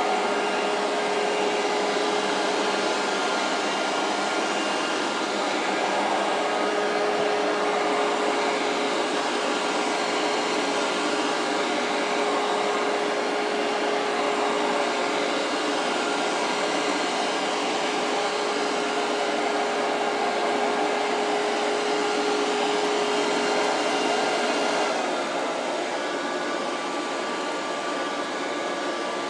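Gutrend Joy 90 Pet robot vacuum cleaner running, a steady whirring rush with a constant tone in it. Near the end the tone drops out and the sound gets slightly quieter.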